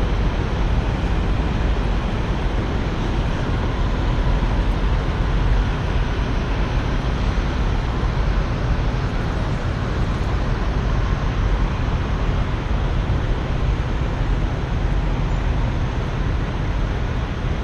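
Steady low rumble and hiss of wind and road noise on the microphone while moving, unbroken and without sharp sounds.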